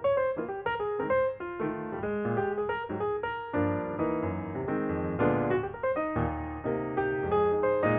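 Background piano music: quick runs of notes over chords.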